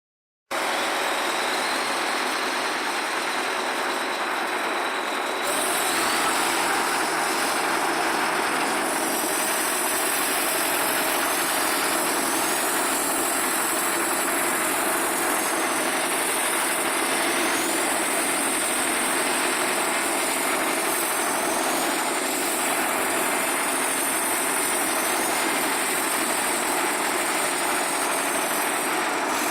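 Vehicle engine running steadily with a continuous hum and faint wavering high whines, after a brief dropout at the start.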